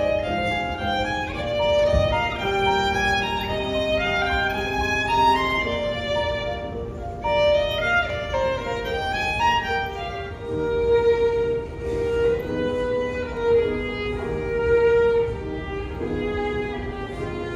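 Background instrumental music led by a violin playing a melody of held notes.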